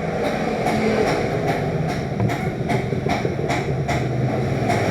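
Electric hair clipper running with a loud, steady, rattly buzz. The owner calls the machine very noisy, which is the fault being fixed.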